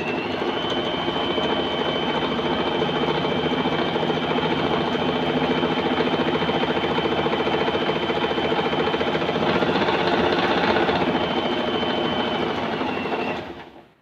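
Usha Allure electric zigzag sewing machine running steadily at speed with a thin whine, sewing a dense short zigzag (selector C, stitch length between 0 and 1) that gives an embroidery-like short stitch. It winds down and stops near the end.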